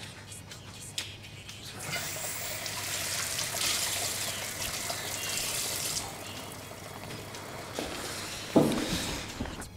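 Kitchen tap running into a sink while dishes are washed. The water comes on about two seconds in and stops about six seconds in. A sharp thump follows near the end.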